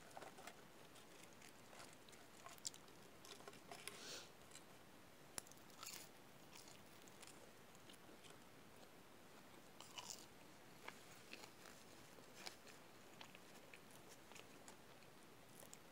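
Faint chewing and mouth sounds of someone eating french fries and a cheeseburger, with scattered small clicks and crackles from handling the food and a few sharper ticks.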